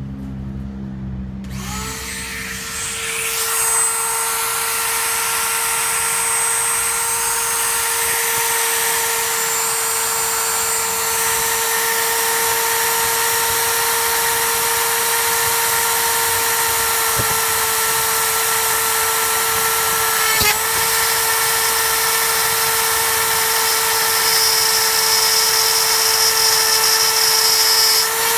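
Dremel rotary tool starting up about two seconds in, then running at a steady high whine as its bit routes a slot through a clear plastic housing, with a hiss of cutting plastic under the whine. The tool's pitch dips briefly about two-thirds of the way through.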